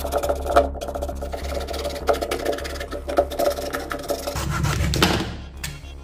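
Hacksaw cutting through the plastic case of a lead-acid motorcycle battery: rasping back-and-forth strokes that ease off near the end as the top comes free.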